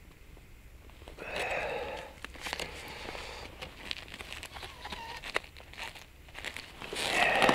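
Rustling, crinkling handling noise from the angler's movements close to the microphone, with many short sharp clicks. It swells about a second in and again near the end.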